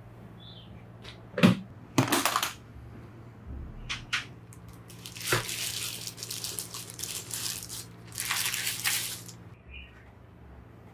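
Latches of an aluminium carry case snapping open with two sharp clacks close together, then the rustling and crinkling of a thin protective sheet being handled over the keyboard inside.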